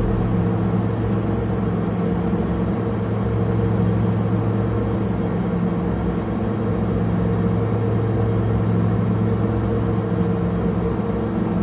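Engine of a customized 1948 Dodge panel truck idling steadily, a low even rumble with no revving.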